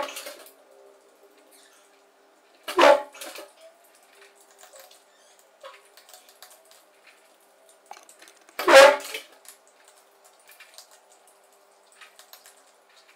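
Cats eating dry food from plastic bowls on a tile floor: scattered small clicks and crunches, with three brief louder sounds, one at the start, one about three seconds in and one about nine seconds in.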